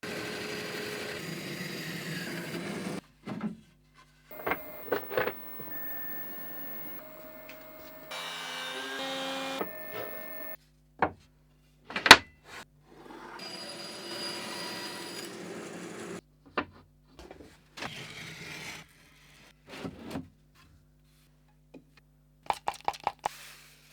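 Woodworking workshop sounds in short clips cut one after another: several stretches of power tools running on wood, each starting and stopping abruptly, with sharp knocks in between and a quick run of taps near the end.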